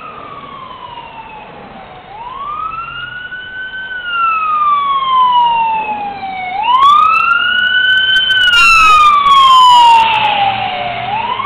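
Fire engine siren wailing in slow rising and falling sweeps, about one every four to five seconds, growing louder as the truck approaches and passes close by. Near the end, when it is loudest, quicker siren sweeps overlap it briefly.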